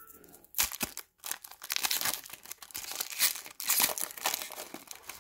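Foil wrapper of a Mosaic basketball card pack being torn open and crinkled by hand: a quick run of sharp, irregular crinkling and tearing sounds starting about half a second in.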